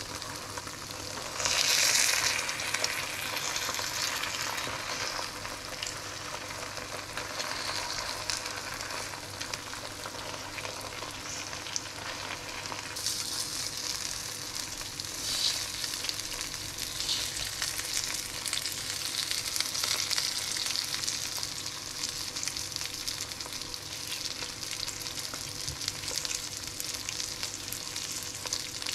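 Eggs frying on a layer of grated mozzarella in a nonstick pan, with a steady hissing sizzle. The sizzle flares loudly about two seconds in and grows brighter again about halfway through.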